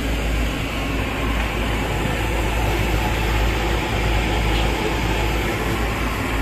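Steady low mechanical rumble with a constant background noise.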